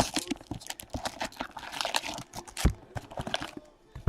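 Trading card pack wrappers crinkling and tearing as packs are opened by hand, in quick irregular rustles and snaps.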